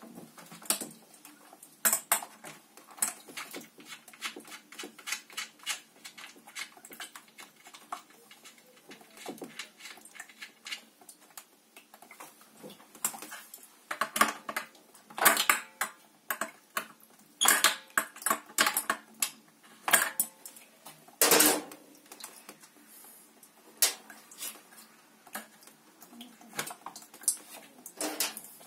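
Irregular metal clicks and clinks of a wrench working the nuts that hold the heating-element flange on an Atlantic 50-litre electric water heater, as the flange is unbolted for descaling. The clicks are scattered throughout and loudest in the later middle part.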